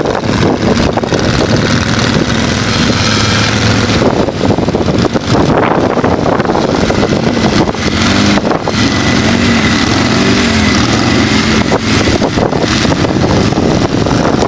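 Side-by-side UTV engines running under load, their pitch rising and falling several times about midway through as the throttle is worked on a steep gully climb. Wind buffets the microphone.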